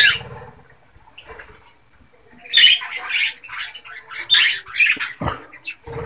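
Budgerigars squawking and chattering in a run of short, harsh bursts, starting after a quiet first two seconds.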